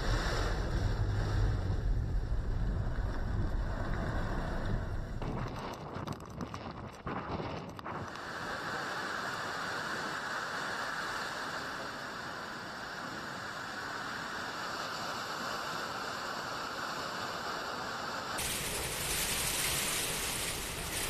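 Storm wind buffeting the microphone with a heavy low rumble, followed by a steady rushing hiss of wind-driven weather that turns brighter and fuller near the end.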